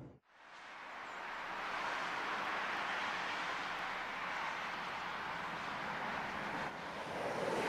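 Steady rushing cabin noise inside a Haramain high-speed train carriage, fading in just after the start.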